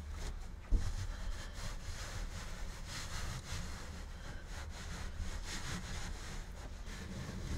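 Hands rubbing and pressing carpet-style headliner fabric against a glued cabin ceiling: a run of short, scratchy rubbing strokes, with a single low thump under a second in.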